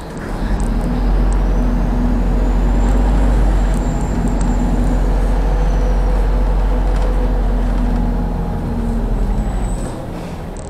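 Diesel engine of a MAZ city bus, heard from inside the bus, running under load as it drives and turns. The engine gets louder about a second in and eases off near the end, with a faint high whine rising and falling in the first half.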